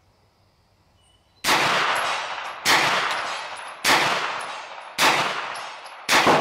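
Five semi-automatic shots from a Hi-Point 995TS 9mm pistol-caliber carbine, spaced a little over a second apart, starting about a second and a half in. Each crack trails off in a long echo.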